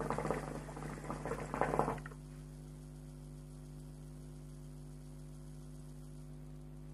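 Water in a hookah base bubbling as smoke is drawn through it, for about two seconds. It then stops, leaving only a steady low electrical hum.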